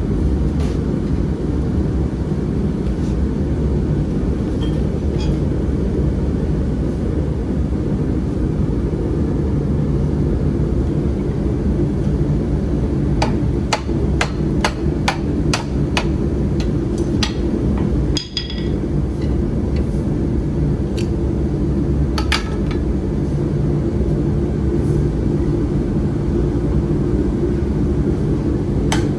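Hammer blows on metal over a steady low machine drone. There is a quick run of about eight strikes around halfway through, a couple more a few seconds later, and more as it ends.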